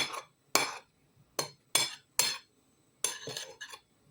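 A spoon clinking against a dish while stirring soup: about five separate clinks, then a quicker run of strikes about three seconds in.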